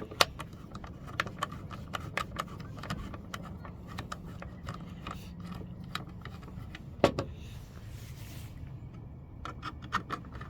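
Irregular small clicks, taps and scrapes of a screwdriver working the hop-up retaining screws on an airsoft rifle's receiver, with a sharper click near the start and another about seven seconds in, over a steady low hum.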